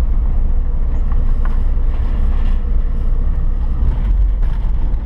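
Toyota Hilux pickup driving, heard from inside the cab with the windows open: a steady, loud low rumble of engine and tyre noise, with wind noise through the open windows.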